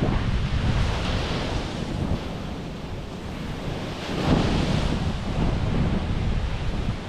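Wind gusting over the microphone: a rumbling rush that swells and eases, with a stronger gust about four seconds in.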